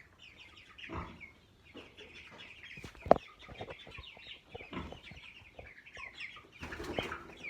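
A flock of young broiler chickens clucking, with many short high calls throughout. A few knocks are heard, the sharpest about three seconds in.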